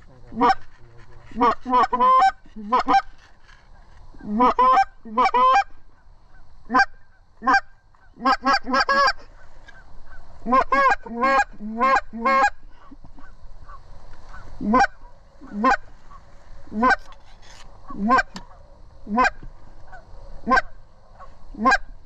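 Goose honks: quick runs of several honks in the first half, then single honks about one a second.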